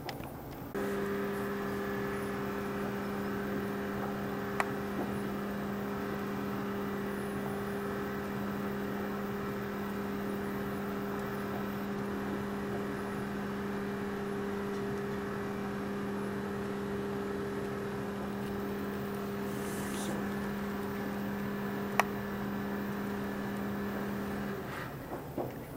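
Steady electric hum from an appliance or motor, switching on about a second in and cutting off shortly before the end, with two sharp clicks along the way.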